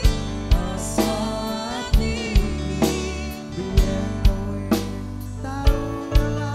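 Live Javanese dangdut band music: a male voice sings over a steady bass and a driving pattern of drum strokes, which come in groups of three about half a second apart, from kendang hand drums and a drum kit.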